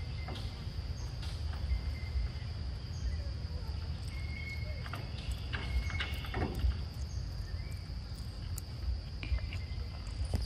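Insects droning steadily at a high pitch, with scattered short clicks and a constant low rumble underneath.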